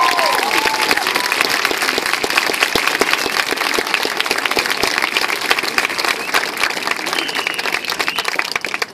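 Crowd applauding and cheering at the end of a marching band performance, with a few high cheers in the first second. The clapping eases slightly toward the end.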